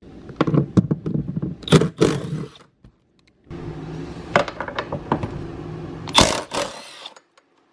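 Milwaukee Fuel cordless impact driver running in two bursts of a couple of seconds each with a short pause between, hammering out the seat-rail mounting bolts. A sharp clack comes near the end.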